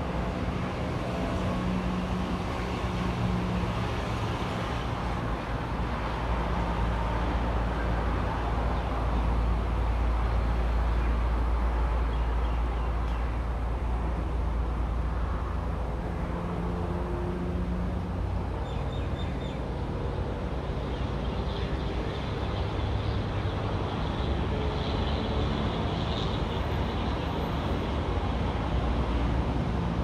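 Steady low rumbling background noise with a faint hum, unchanging throughout.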